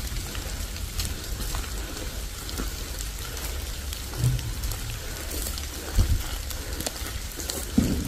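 Light rain in a wet forest: scattered drops ticking on leaves over a steady low rumble. A few soft low thumps come about four and six seconds in and again near the end.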